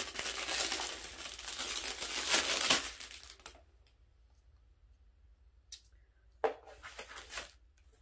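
Clear plastic packaging bag crinkling and rustling as it is handled and opened, stopping after about three and a half seconds. A few light clicks and one sharper knock follow as small parts are handled.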